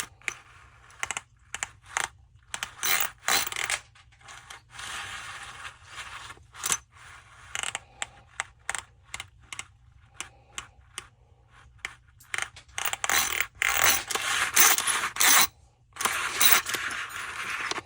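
Hand work on cut-off saw parts: irregular clicks and taps of small metal pieces, with several longer stretches of scraping or rubbing.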